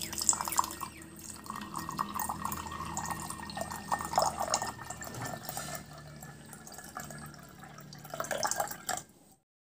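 Water poured in a thin stream into a glass tumbler, splashing and trickling into the water already in it. It cuts off about nine seconds in.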